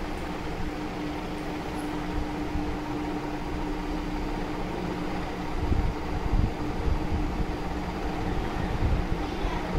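Steady background hum and hiss, like a running fan, with one steady tone underneath. A few dull low bumps come about six seconds in and again near the end.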